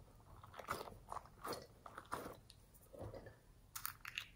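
Hands handling a rubbery spiky toy and a small plastic pot: irregular soft crackles and rubbing, then a quick cluster of sharp clicks near the end.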